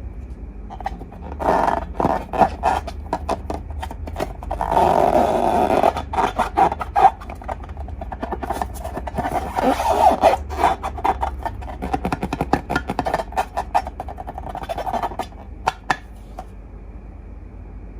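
Slime being squished and worked by hand, giving dense sticky crackling and popping clicks with a louder squelching stretch about five seconds in.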